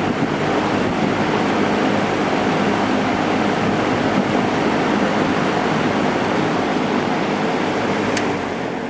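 Lakewood JCPenney 9711 box fan with a 3.1 amp General Electric motor running on medium speed: a steady rush of air over a low motor hum, easing off a little near the end.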